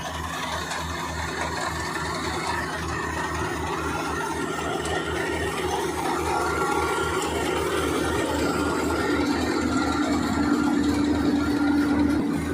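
Combine harvester running, its engine giving a steady, fast low throb under a rattling machine noise, growing louder toward the end.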